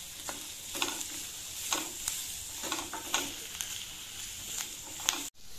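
Chopped onion, carrot and green capsicum sizzling in oil in a stainless-steel kadhai, with a spatula scraping and tapping the pan about twice a second as the vegetables are stir-fried on medium heat. The sound cuts out for a moment near the end.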